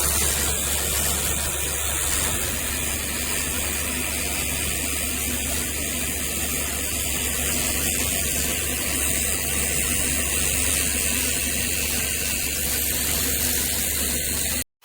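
Cordless handheld pressure washer running steadily: a continuous hiss of spraying water over the low hum of its pump. The sound cuts off suddenly near the end.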